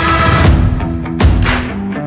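Background music from a hard-hitting rap track. The full, dense sound drops away about half a second in, leaving held low notes, and a single heavy hit lands just past a second in.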